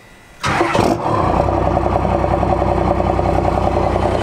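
A twin-turbo first-generation Cummins 12-valve diesel starting: it catches suddenly about half a second in, then settles within a second into a steady, even idle.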